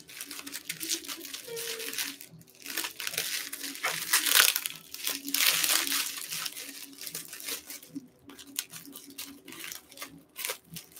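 Clear plastic wrapping around a cup crinkling and rustling in quick, irregular crackles as it is handled and cut open with scissors, busiest in the middle.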